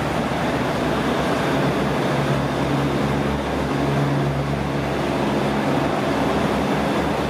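Diesel trains running at a station platform: a steady low engine drone over constant mechanical noise.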